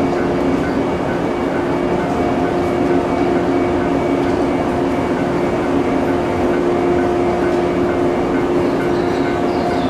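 Electric train standing idle, its onboard equipment humming steadily: a constant tone over an even rushing noise, with no change in pitch.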